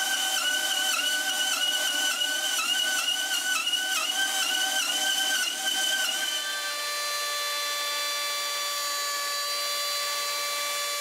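Bandsaw cutting the headstock angle through a wooden guitar neck blank, its whine dipping in pitch again and again as the blade loads up in the cut. About six and a half seconds in it gives way to a handheld router running at a steady pitch.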